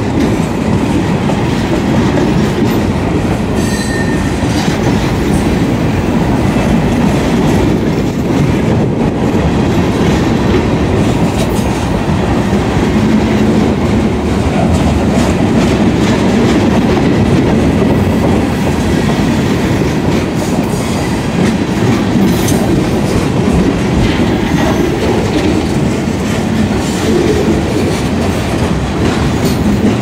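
Kansas City Southern freight train's cars rolling past at close range (gondolas, a covered hopper and boxcars): a steady loud rumble of steel wheels on rail with scattered clicks and clanks.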